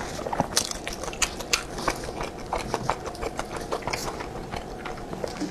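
Close-miked eating: biting and chewing sticky-rice meat zongzi and a raw green onion, with frequent sharp, irregular mouth clicks.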